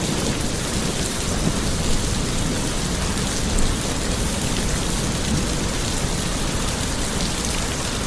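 Steady heavy rain, an even hiss of falling water over a deep low rumble.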